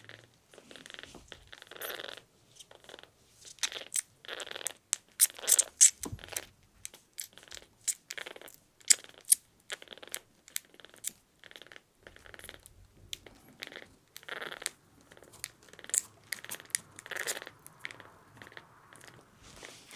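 Irregular crackly rustling and sharp clicks from hands holding and handling a newborn kitten over tissue paper, loudest about five to six seconds in and again near nine seconds.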